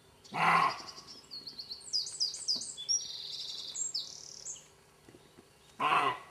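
European roe deer barking: two short, harsh barks, one about half a second in and one near the end. Between them a small bird sings a quick run of high chirps and trills.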